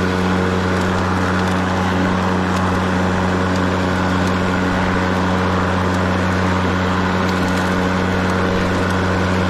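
Ryobi 40V brushless battery-powered self-propelled lawn mower running with its blade spinning and its drive engaged. It makes a steady low hum with an even hiss of air over it, holding level throughout.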